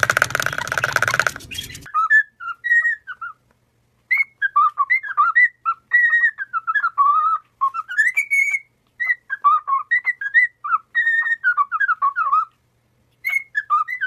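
A parrot's loud, rasping screech that cuts off about two seconds in, then a cockatiel whistling a tune of short gliding notes with a few brief pauses.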